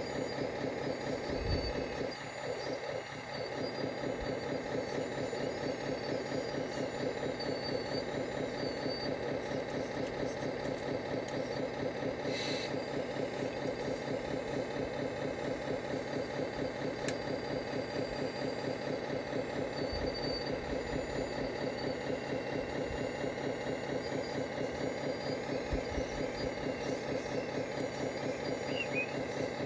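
Radio-controlled model Volvo hydraulic excavator running, a steady, evenly pulsing engine-like hum that carries on as it digs and swings.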